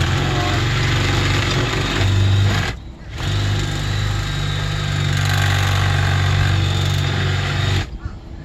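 Electric power tool cutting through the jammed metal locking pin of an RV door latch: a loud steady buzz that pauses briefly about three seconds in, runs again, and stops shortly before the end.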